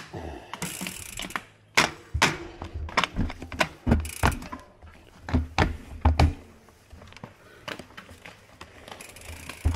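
Mountain bikes rolling off along a dirt trail: irregular clicks, knocks and rattles from their drivetrains and frames, with a few low thumps as the wheels go over bumps.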